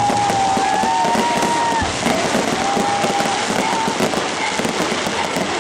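Fireworks display crackling and popping continuously in dense rapid clicks, with a few thin held whistling tones over it.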